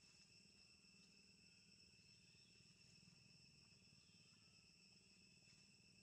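Faint, steady high-pitched trilling of insects, unchanging throughout, over a faint low hum.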